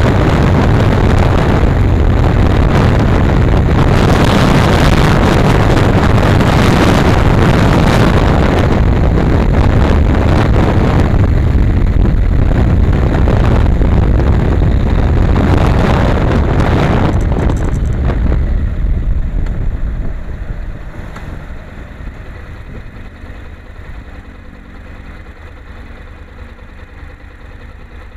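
Heavy wind rush on the microphone and engine noise from a Honda NC700X under way. About two-thirds of the way through it dies away over a few seconds as the bike slows and stops, leaving its parallel-twin engine idling quietly.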